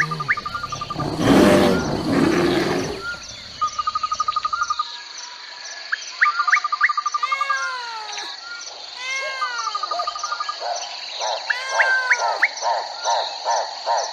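A rough, noisy animal roar fades out over the first three seconds. A chorus of crickets and birds follows: a steady high insect trill with regular pulses, a lower trill repeating in short runs, and arching chirp calls. Near the end comes a quick run of pulsed calls.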